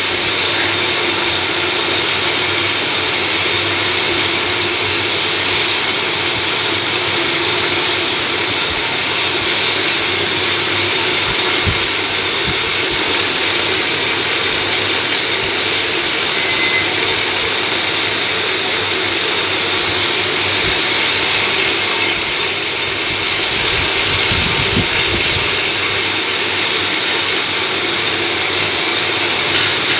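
Metal lathe running at a steady speed, its chuck spinning a workpiece during a turning job: a constant mechanical whir with a hiss over it, and a few faint knocks.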